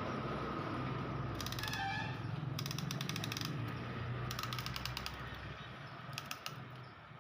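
Ratchet wrench clicking in four short runs of rapid clicks, each under a second long. A low steady hum underneath fades out about five and a half seconds in.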